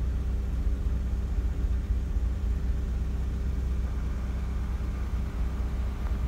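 Car engine idling steadily, a low rumble with a faint steady hum.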